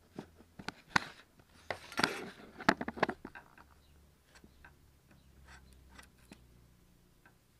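Chisel splitting and paring away a fir layer from a board: a run of sharp cracks and snaps of wood fibres, loudest in the first three seconds, then lighter ticks.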